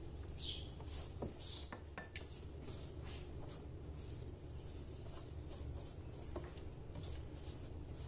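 Silicone pastry brush dabbing and sweeping egg wash over a filo pastry sheet: a faint papery rustle in quick strokes. In the first couple of seconds there are a few light clinks of the brush against the glass bowl. A low steady hum runs underneath.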